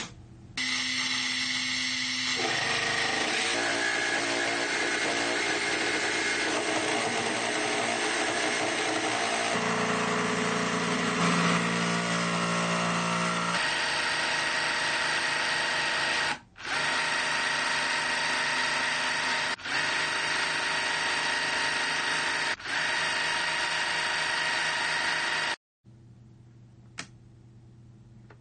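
Makita JV001G 40Vmax brushless cordless jigsaw running, its motor and reciprocating blade making a loud, steady mechanical sound that changes pitch and character a few times. It drops out briefly three times, then stops about 25 seconds in, leaving a low, faint hum.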